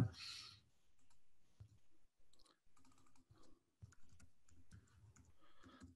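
Faint typing on a computer keyboard: irregular, scattered key clicks.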